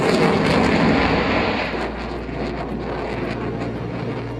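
Fighter jet flying over, its loud roar fading away over the first two seconds, with a steady low drone under it afterwards.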